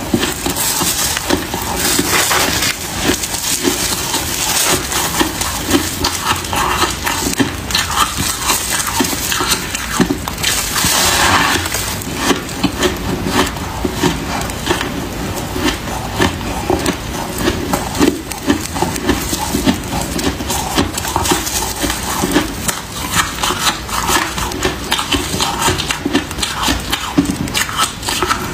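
Freezer frost crunching and crackling without a break as it is chewed and squeezed into lumps in gloved hands.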